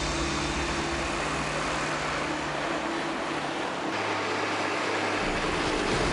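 Farm tractor engine running steadily under load, with a dense mechanical noise over it. The engine note shifts about four seconds in.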